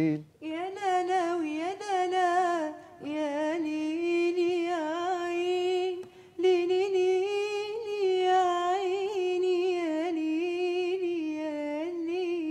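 A woman's solo voice singing unaccompanied into a handheld microphone: long, wavering, ornamented Arabic vocal phrases. It pauses for breath about three and six seconds in.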